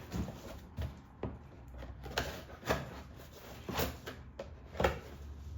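Packaging being torn and pulled open by hand. It goes as a run of rustles with about six short, sharp rips or knocks, roughly a second apart.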